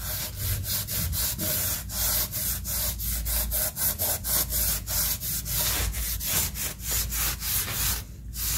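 A blue scouring pad scrubbing back and forth on ceramic tile to rub off hard-water stains, in quick even strokes about three to four a second. The scrubbing stops shortly before the end.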